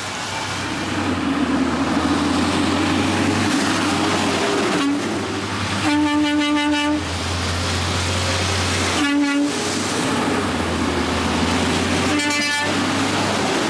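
Garbage truck honking its horn three times a few seconds apart (the first about a second long, the second a short toot), over the steady running of the truck's engine.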